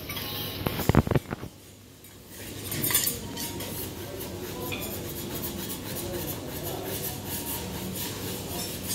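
Utensils clinking against dishes, a few sharp clinks close together about a second in, followed by a steady background hiss.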